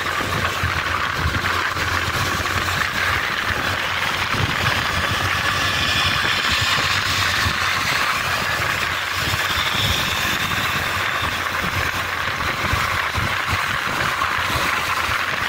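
Steady road noise from riding on the back of a moving motorcycle taxi in traffic: wind rushing over the microphone, with gusty low rumbles, and the motorcycle's engine running underneath.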